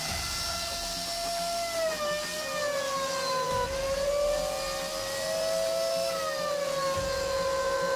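CBR 1.5 desktop CNC router running a job, a steady high motor whine with overtones. Its pitch slides down about two and three and a half seconds in, rises briefly around five and a half seconds, then settles lower again, as the gantry and spindle move.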